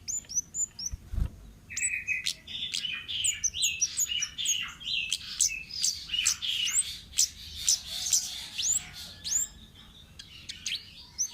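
Kemade bird singing in the wild: a busy, rapid run of high chirps and upward-sweeping whistles that thickens into continuous chattering after the first couple of seconds. A single low thump sounds about a second in.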